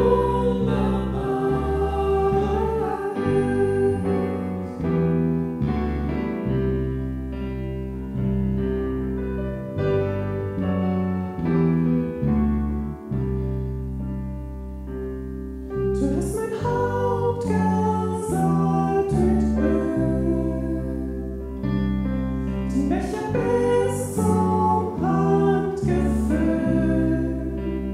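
Worship song sung by two women's voices, accompanied by a digital piano and an electric bass. The voices ease off for a short stretch in the middle, then come back in.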